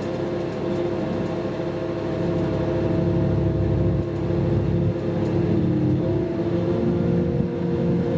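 Inside the passenger cabin of a DB Class 612 RegioSwinger diesel railcar: a steady diesel drone with several whining tones over a low rumble of the running gear.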